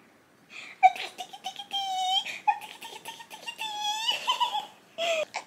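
A baby squealing happily: a few long, high-pitched drawn-out squeals with short giggly bursts between them.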